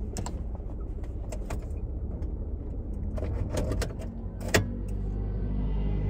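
Car cabin with a low steady hum under a run of clicks and knocks as the car's controls are worked: the AC switched off, the gear selector put into park, the windows wound up and the doors unlocked. The sharpest click comes about four and a half seconds in.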